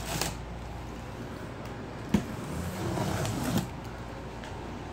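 Utility knife and cardboard shipping box being worked on: a sharp click about two seconds in, then about a second and a half of scraping as the blade is drawn along the packing tape.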